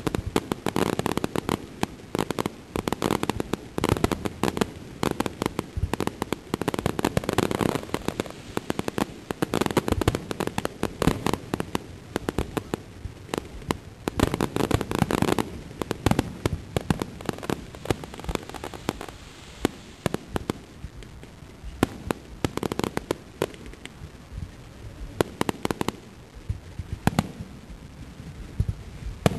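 Aerial fireworks display: rapid bangs and crackling bursts, packed close together for about the first half, then thinning to scattered pops and booms.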